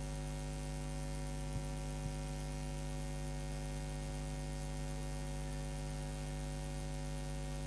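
Steady electrical mains hum: a constant low buzz with a ladder of evenly spaced overtones, unchanging throughout.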